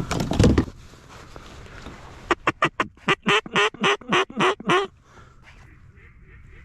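A low handling knock at the very start, then about two seconds in a quick run of about ten loud mallard-style quacks, roughly four a second, in the falling cadence of a hen mallard's call.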